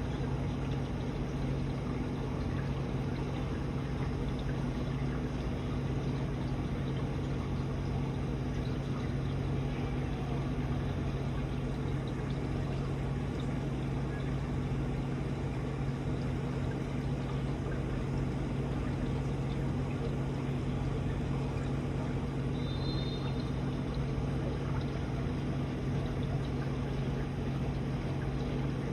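Aquarium water pump and filter running: a steady low hum with water trickling and splashing.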